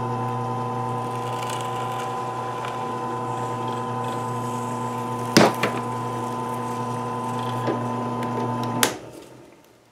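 Corded electric drill running at a steady speed while boring a hole through wood, with a sharp click about five and a half seconds in. It is switched off shortly before the end and winds down.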